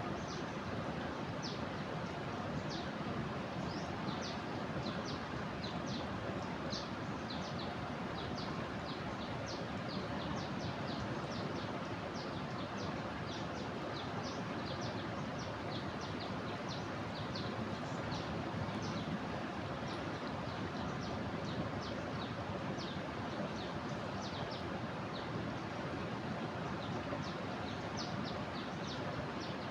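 Steady rush of a flooded river's water, with many short, high bird chirps over it.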